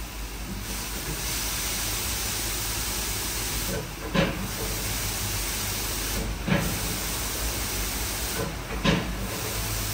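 WashTec SoftCare2Pro rollover car wash spraying liquid onto the car: a steady hiss. It dips briefly about every two and a half seconds, and each dip ends in a sharp knock, three times.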